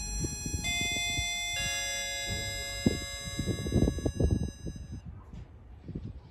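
Three-note descending electronic chime, the notes ringing on together and fading out over a few seconds. A few dull thumps come around the middle.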